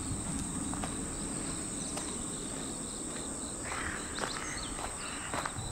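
A steady, high-pitched chorus of insects chirping in the grass, with a few footsteps crunching on gravel, loudest about four seconds in.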